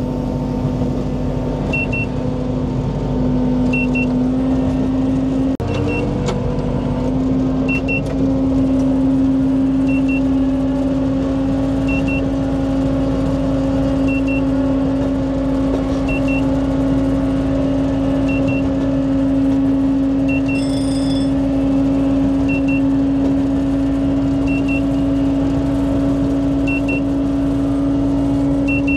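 Engine of a ride-on, hydraulic-drive miniature locomotive running steadily, its hum stepping up in pitch a few seconds in. A short double beep repeats about every two seconds.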